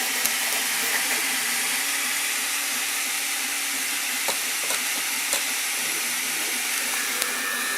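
Sovol SV08 3D printer running with a steady fan hiss, with a few faint clicks about halfway through.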